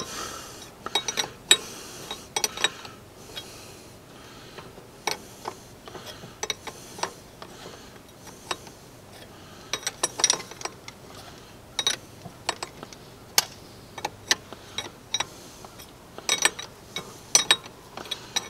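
Steel wrenches clicking and clinking against hydraulic hose fittings as they are turned and tightened: irregular sharp metallic clicks, some coming in quick little clusters.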